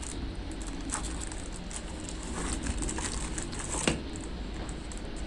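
Quiet rustling and crinkling of plastic packaging as a mini tripod is taken out of its box and clear plastic bag, with scattered light clicks and one sharper tick about four seconds in.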